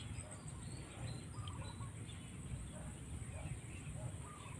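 Outdoor rural ambience: a steady high insect drone with scattered short bird chirps, over a continuous low rumble.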